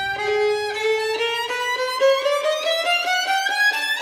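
Violin playing a fast run of short notes that climbs steadily in pitch.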